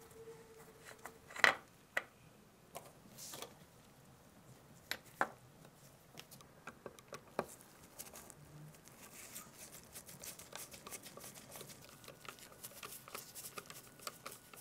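Small screwdriver and metal parts clicking and scraping on a Zeiss Ikon Tenax camera's lens and shutter housing as tiny screws are worked: a few sharp clicks in the first half, the loudest about a second and a half in, then a dense run of fine scratchy ticks over the last five seconds.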